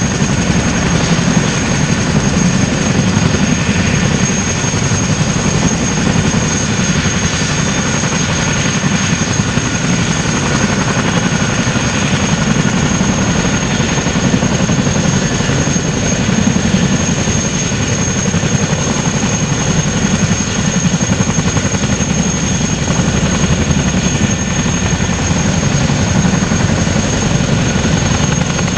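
RAF Boeing CH-47 Chinook tandem-rotor helicopters running on the ground with rotors turning: a steady, loud rotor thrum and turboshaft engine noise with a constant high whine over it.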